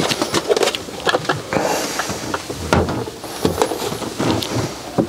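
Irregular clicks, knocks and light clatter of an appliance being handled and pressed into place on magnet and gel pads.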